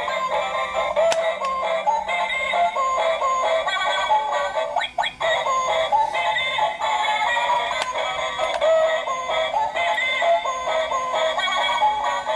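Battery toy egg-laying chicken playing its built-in electronic song through its tiny speaker, a tinny, thin melody with synthetic singing, while it is overvolted from a bench power supply. The tune breaks briefly with a few clicks about five seconds in.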